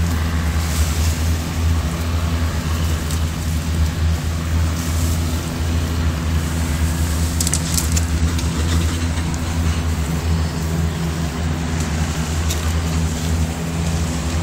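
A steady low mechanical hum, even in loudness, with a few faint clicks.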